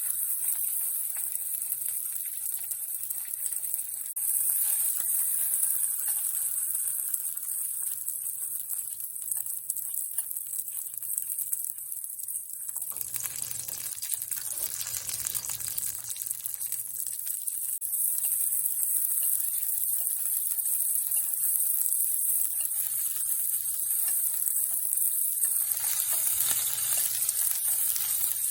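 Chicken thigh sizzling as it pan-fries in a little oil, a steady hiss that grows fuller about halfway through.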